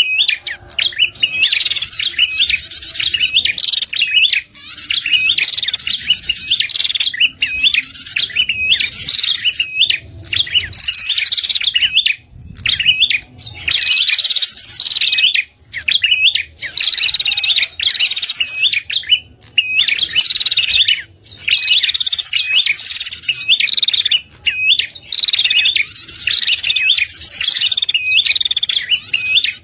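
Recorded song of the red-headed prenjak (prenjak kepala merah), a small Indonesian warbler, played as a lure call: rapid, high, repeated chirping notes in phrases of a second or two with short breaks between them.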